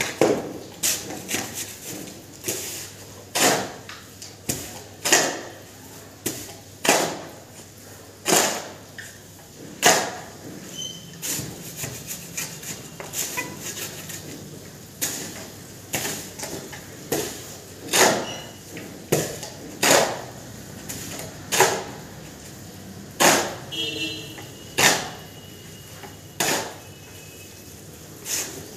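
Steel shovel scraping across a concrete floor as it scoops and turns a dry sand-and-cement mortar mix, a short sharp scrape roughly every one to two seconds.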